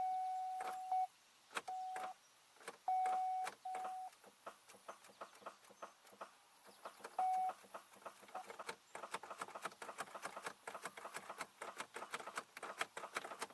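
Car's electronic warning chime sounding at one steady pitch: a long tone ending about a second in, then four short beeps, the last around seven seconds in. Many faint, irregular clicks run underneath and grow denser in the last few seconds.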